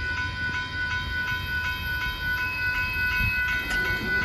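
Railroad grade-crossing warning bell ringing in a steady rhythm of about three strikes a second, with a low rumble underneath.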